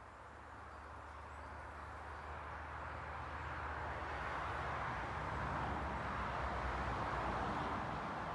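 A car approaching, its engine rumble and tyre noise growing steadily louder for about five seconds, then holding loud.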